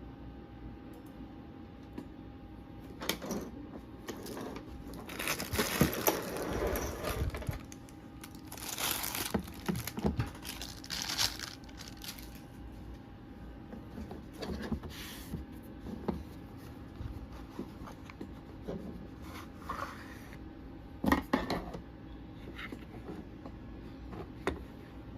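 Packaging being handled and opened: stretches of crinkling and tearing with a few sharp clicks and knocks. The longest bursts come about a quarter and about halfway through.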